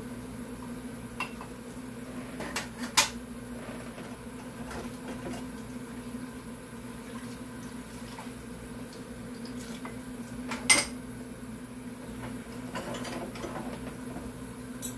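Dishes and cutlery clinking and clattering in a kitchen sink during washing up. There are scattered small knocks, with two sharper, louder clacks about three seconds in and near eleven seconds, over a steady background hum.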